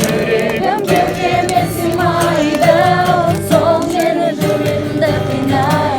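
Background music: a song with sung vocals over a steady bass line.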